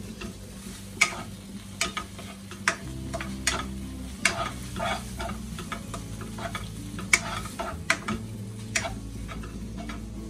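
Diced ham and bacon with onion sizzling in a frying pan while a wooden spoon stirs it, with irregular clicks and scrapes of the spoon against the pan.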